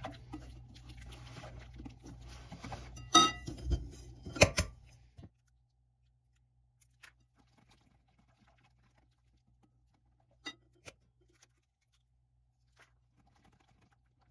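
A silicone whisk stirring a thick batter in a glass bowl, with two sharp knocks on the bowl a few seconds in. After about five seconds, near silence with a few faint ticks.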